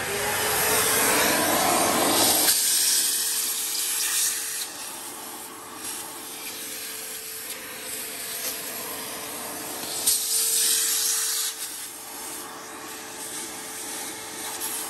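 Vacuum cleaner running with a steady motor whine and rushing air, clearing loose swarf and debris from the opened lathe headstock. It is loudest for the first couple of seconds, then quieter, and swells again briefly about ten seconds in.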